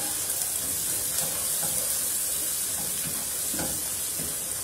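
Onions and ginger-garlic paste sizzling in hot ghee in a kadai, with a steady hiss, while a spatula stirs and scrapes through them.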